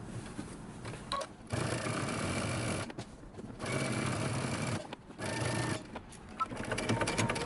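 Domestic sewing machine edge-stitching a pocket onto a dress, running in three short bursts with brief stops between.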